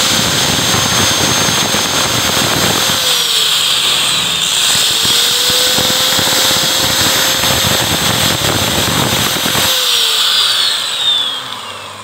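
Angle grinder with a cutting disc running against a motorcycle engine valve that turns in a small lathe. The high whine dips in pitch under load about four seconds in, recovers, then falls away near the end as the grinder winds down.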